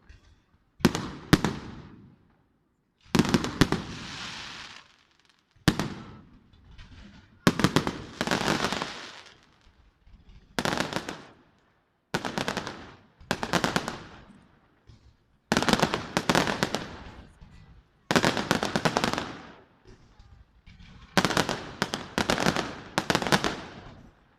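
Fireworks display: aerial shells burst in quick clusters of sharp bangs about every one to two seconds, each cluster fading off in a rushing tail, with short quiet gaps between.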